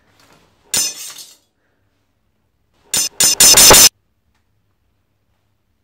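Steel kitchen knife taped across a small jar, pushed to spin on a tile floor: a sharp metallic clink about a second in, then a louder ringing metal clatter on the tiles for about a second near the middle, as the spin comes to a stop.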